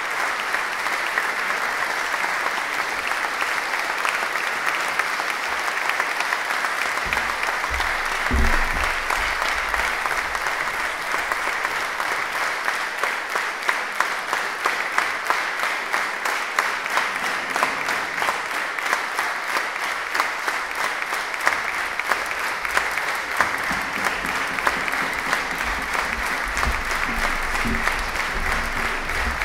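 Concert audience applauding, a dense steady clapping that settles into rhythmic clapping in unison about halfway through.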